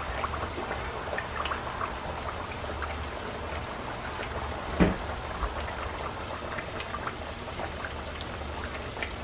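Flour-coated chicken deep-frying in hot oil: a steady sizzle full of fine crackles, with one louder pop near the middle.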